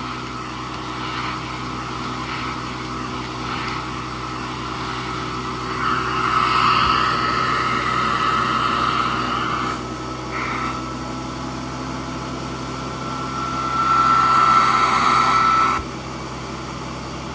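Hoover Model 28 vacuum cleaner running steadily with its brush-roll belt on: a motor hum with a high whine. The whine and the rush of air get louder twice, for a few seconds about six seconds in and again near the end, then drop back.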